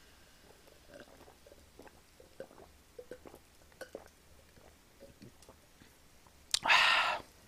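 Person drinking Welch's soda from a glass: a run of soft gulping and swallowing sounds, then a loud, breathy exhale of about half a second near the end.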